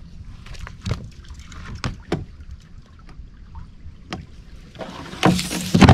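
Canoe paddle being handled in the boat: a few sharp knocks of the paddle against the canoe's hull, then a louder rush of paddle-and-water noise near the end.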